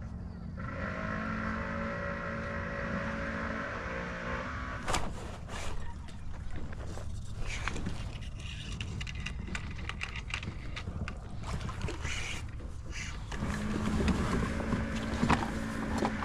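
A fish being fought on a spinning rod from a kayak. A steady buzzing whine runs for about four seconds, then come irregular clicks, knocks and scrapes of reel and tackle against the kayak, and a steady buzz again near the end.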